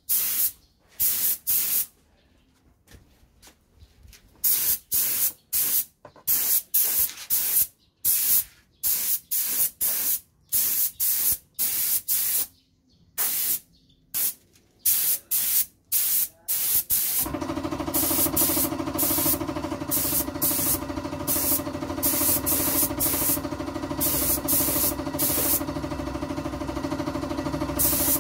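Compressed-air paint spray gun hissing in short repeated trigger pulls as paint is sprayed onto an engine case. About 17 seconds in, an air compressor motor starts and runs steadily under the continuing spray bursts.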